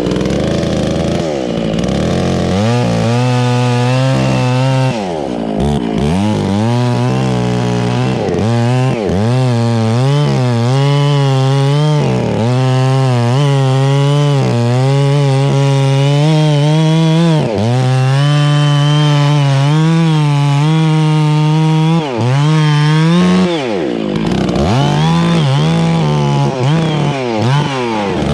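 Two-stroke chainsaw running at high revs and cutting into a tree trunk. Its pitch dips again and again as the chain loads up in the wood, then picks back up.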